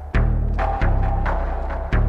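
Bass-boosted acidcore (hardcore techno) track: heavy distorted kick hits with a droning low bass between them, the strongest hits just after the start and near the end.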